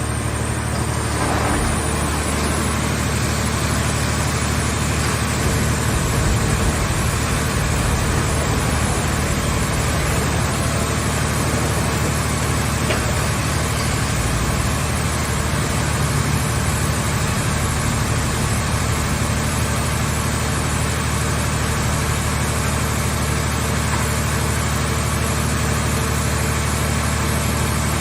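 Hydraulic car-shell baler's power unit running steadily: an engine-driven hydraulic pump with a low, even hum and a broad machine noise, without distinct crushing impacts.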